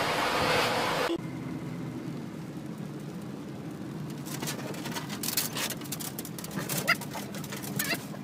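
Inside a moving car's cabin: steady low engine and road rumble, with scattered light ticks of rain on the windshield and wipers, and a dog whimpering briefly a couple of times near the end. The first second is a loud, even hiss from a different clip, which cuts off abruptly.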